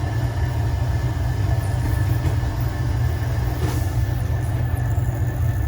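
Steady low machinery drone with a hiss of refrigerant escaping from a large leak at a joint on the evaporator coil.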